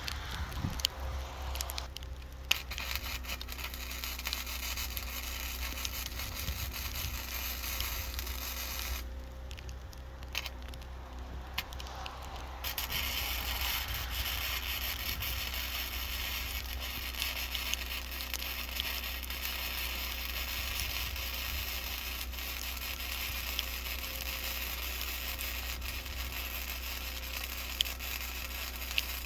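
Wire-feed welder arc crackling and sizzling steadily as weld is laid on the worn track idler. It stops briefly near the start and again for a few seconds around the middle, then resumes.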